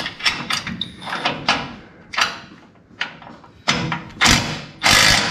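Hand tools clinking and knocking against the steel front-end parts of a dirt modified race car, a string of sharp metallic clicks. Near the end a ratchet wrench turns a nut on the steering linkage in short rasping bursts.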